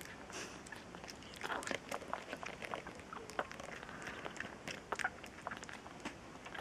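Bottle-fed kitten suckling on a nursing-bottle nipple: soft, irregular sucking and smacking clicks, several a second.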